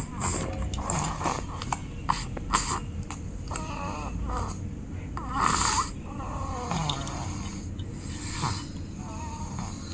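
A baby snoring loudly, a run of uneven breaths, some with a short buzzing tone. The loudest breath comes about five and a half seconds in.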